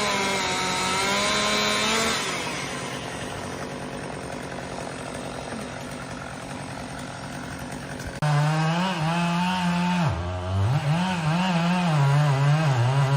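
Chainsaw engine running at high speed, then quieter for several seconds, then loud and close again about eight seconds in, with its pitch dipping and wavering as it cuts.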